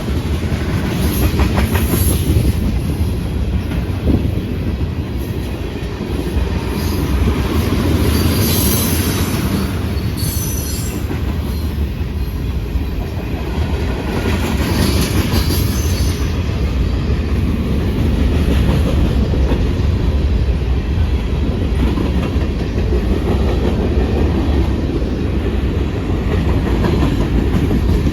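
CN freight train rolling past with a steady heavy rumble. Wheels click over the rail joints, and a few short high-pitched wheel squeals come in the first half.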